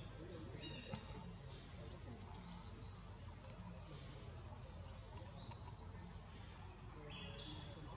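Forest ambience: birds giving short high chirping calls a few times over a steady low background rumble, with a single sharp click about a second in.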